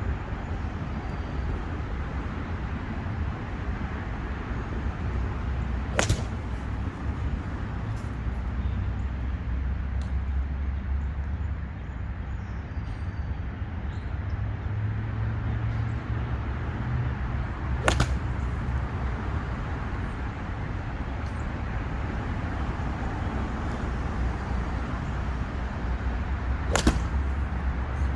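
Three sharp cracks of a golf club striking a ball, about twelve seconds apart, over a steady low outdoor rumble.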